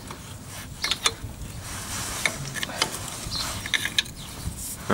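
Scattered metallic clicks and light knocks of a spanner turning the tie-rod nuts that draw the end cap onto a tractor's hydraulic steering cylinder.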